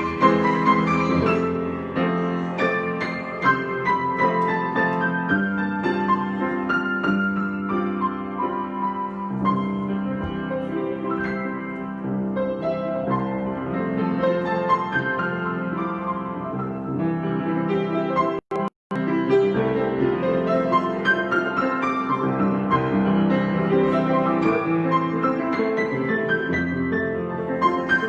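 Piano improvisation: a continuous flow of notes and chords with a steady low accompaniment, broken by two split-second dropouts of the audio about two-thirds of the way through.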